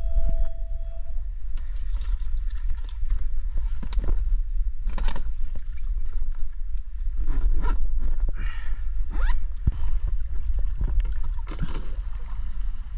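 Red snapper being stuffed into an insulated fish bag on a boat deck: scattered scrapes, rustles and knocks of the bag and gloved hands, over a steady low rumble.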